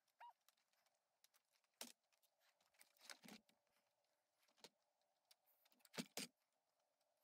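Faint, scattered clicks and clinks of metal wall-tent frame poles being worked loose at their joints, about half a dozen in all, the loudest two close together about six seconds in. A short high chirp sounds just after the start.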